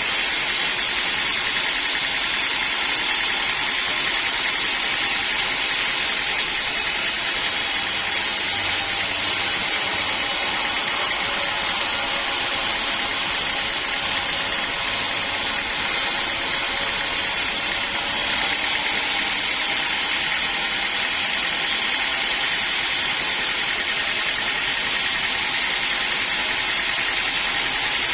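Sawmill machinery running steadily, a continuous mechanical noise without breaks. A higher hiss joins it for several seconds in the middle.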